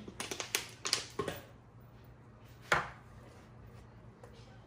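Clicks and knocks of a blender jar and kitchen things being handled on a counter: a quick run of light ones in the first second and a half, then one louder knock a little before the three-second mark.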